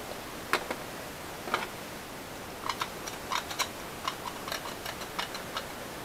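Scattered light clicks and taps of metal hand tools and a small metal pump part being handled: a couple of single clicks, then a cluster of irregular ticks in the second half.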